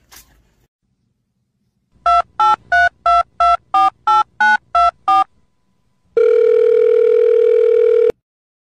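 Telephone keypad tones: ten short two-tone beeps at about three a second, a number being dialled. They are followed by one long, steady telephone tone of about two seconds that cuts off abruptly.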